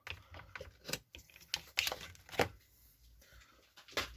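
Irregular light clicks and knocks of small hard parts being handled: a metal pipe and the metal jar lid it has just been pushed through. The strongest knocks come about two and a half seconds in and near the end.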